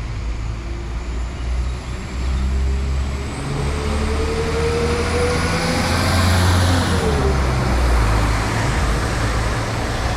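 Northern Class 195 diesel multiple unit pulling out of the station: engine rumble with a whine that rises steadily as it accelerates, then drops about seven seconds in.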